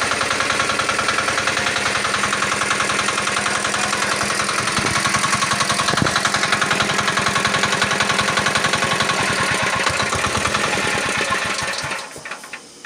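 Pressure washer machine running with a steady, fast pulsing chug, then cutting off suddenly about a second before the end.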